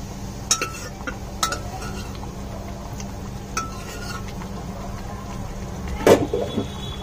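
Metal spoon clinking against a pressure cooker as boiled kidney beans and their cooking water are scraped out into a pan: three light ringing clinks spread over the first four seconds, then a louder clank and a few quick knocks about six seconds in.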